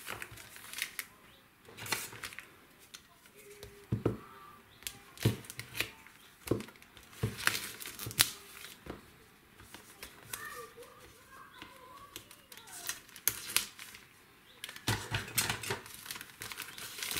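Clear plastic wrapping crinkling as a packaged paper-craft kit is handled and cut open with scissors, in irregular clicks and crackles that grow thicker near the end.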